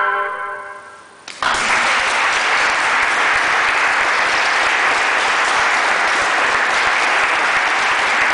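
The last chord of a flute quartet fading away in a reverberant church, then audience applause breaking out about a second and a half in and going on steadily.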